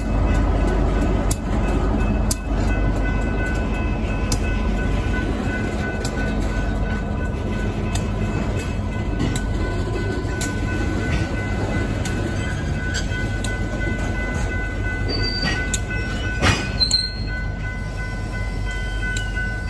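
Slow freight train rolling past: the low rumble of the diesel locomotives gives way to tank cars rolling over the rails, under a steady high squeal. Near the end comes a sharp clank with short screeches.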